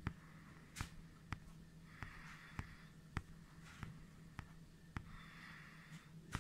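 Quiet room sound: a string of small sharp clicks about twice a second, with two soft breathy rustles and a steady low hum underneath.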